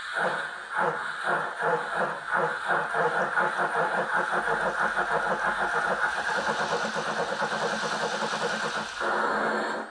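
Steam-locomotive sound from the onboard sound decoder and speaker of a G-scale class 50 steam loco model: exhaust chuffs that start slowly and quicken to a steady rapid beat as the loco is driven off. About a second before the end the chuffing gives way to a steady sound.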